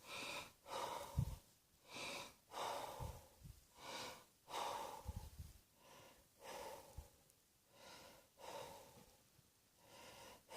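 A person breathing heavily, a little over one breath a second, with a few soft low thumps among the breaths.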